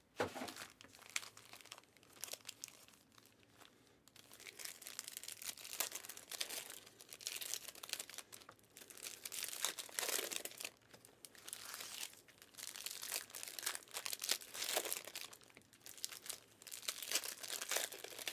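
Trading-card pack wrappers crinkling and tearing as packs are opened by hand: irregular crackly rustles that come and go.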